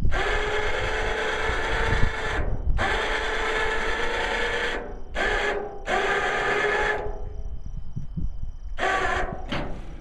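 A small machine or power tool running in several bursts, starting and stopping abruptly: two long runs of a couple of seconds, then shorter ones, with a short one near the end.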